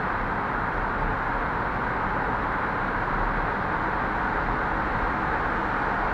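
Steady rushing road and tyre noise of a car driving at highway speed through a road tunnel, heard from inside the cabin, with a low rumble beneath.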